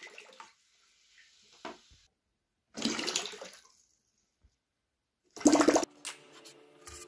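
Water splashing and churning in a plastic tub as a small homemade boat is driven through it. It comes in several short bursts with silence between them, and the loudest is about five and a half seconds in.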